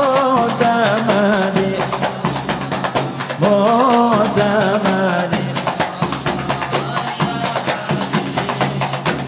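Sholawat group music: a fast, dense rhythm of small rope-laced hand drums played together, with a large frame drum, under male voices singing drawn-out, ornamented phrases. A sung phrase comes at the start and another from about three and a half seconds in.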